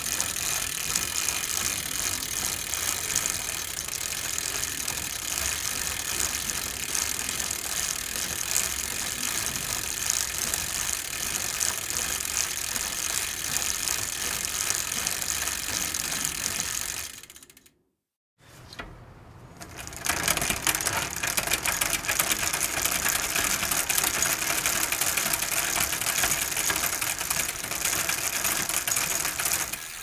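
A bicycle being pedalled, its chain and gears clicking and whirring, fading out about 17 seconds in. After a brief silence a second bicycle with an old chain is pedalled, faint at first and then steady and louder from about 20 seconds in.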